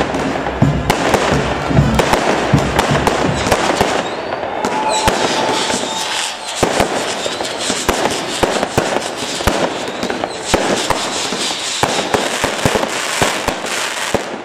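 Fireworks display: aerial shells bursting with many sharp bangs and dense crackling from glittering stars. There is a heavy low rumble in the first few seconds and a rising whistle about five seconds in.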